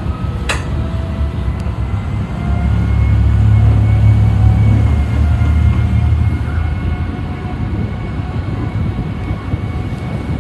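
Passenger ferry's engines running with a steady low drone as the boat pulls away from the wharf, growing louder for a few seconds in the middle as it picks up speed, with a faint steady whine above. A single sharp knock just after the start.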